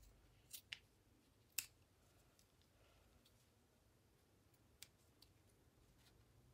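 Small scissors snipping the glued edge of a stuffed fabric toy: a handful of short, faint snips, the sharpest about a second and a half in, against near silence.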